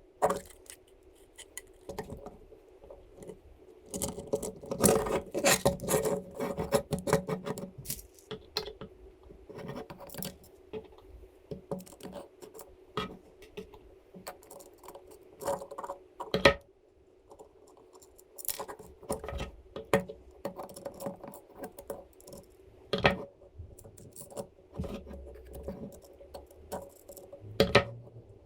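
Irregular clicks, taps and scraping of small metal hardware and 3D-printed plastic parts being handled and fitted together by hand, busiest a few seconds in, with a few sharp ticks later on. A steady hum runs underneath.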